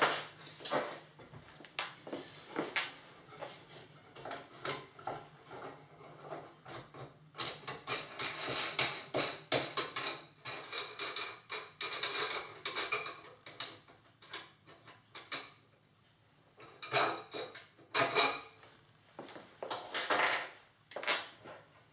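Workshop handling noise from a wooden cello rib-building jig and its clamp rods: irregular knocks, clicks and short scrapes of wood and metal parts being moved and adjusted. The sounds are busiest in the middle, with a short lull about two-thirds of the way through.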